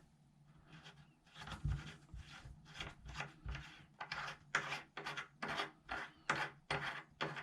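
A two-handle Delta faucet's metal nut being unscrewed: a run of short rasping scrapes of metal on metal, about three a second, getting stronger after the first second or so.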